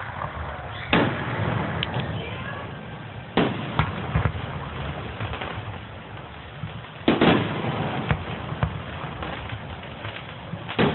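Fireworks going off: a series of sharp bangs at uneven intervals, the loudest about a second in, around three and a half seconds in and about seven seconds in, with smaller crackles and rumble between them.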